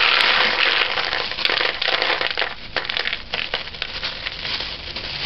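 Dried kidney beans pouring out of a plastic bag into a bowl, with the bag crinkling. A dense rattle for about the first two seconds thins into scattered clicks as the beans are spread by hand.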